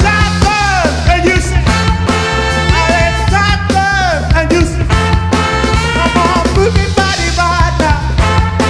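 A live band playing an up-tempo soul number: a steady, driving bass line under a lead line whose notes bend and slide up and down.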